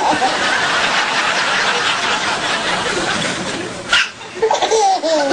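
Audience laughing, an even wash of many voices that cuts off about four seconds in. Short bursts of chuckling voices follow near the end.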